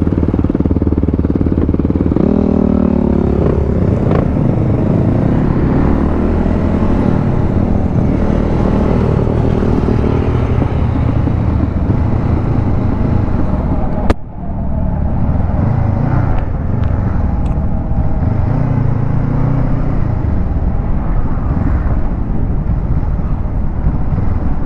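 Motorcycle engine running under way, its revs rising and falling. A single sharp click about fourteen seconds in is followed by a brief dip in level.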